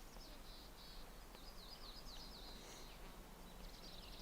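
Faint songbird chirps: a run of quick, high twitters that fades out after a couple of seconds, over a quiet background hiss.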